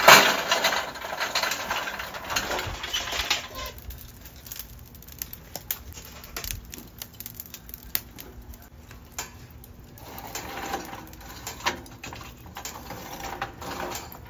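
Hot lump charcoal poured from a chimney starter into a small portable charcoal grill, clattering and rustling as it lands and settles over the first few seconds. Then the burning coals crackle and tick with scattered sharp pops.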